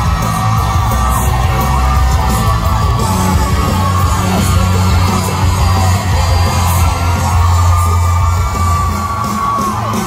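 Rock band playing loud in a club, heard from the audience, with a steady deep bass drone under it and the crowd yelling and whooping.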